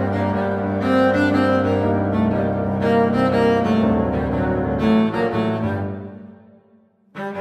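Instrumental background music with sustained notes over a steady low bass; it fades out near the end and starts again just before the end.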